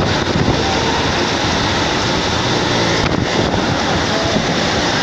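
Steady rushing noise of a moving train, heard from inside the carriage.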